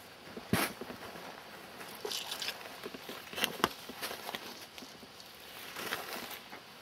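Footsteps on a forest floor of moss, needles and twigs, with a few irregular snaps and crackles underfoot.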